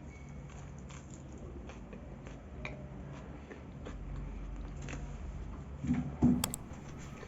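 A person biting into and chewing a sandwich with lettuce, tomato and onion: quiet mouth and chewing sounds with small clicks, and a short louder sound about six seconds in.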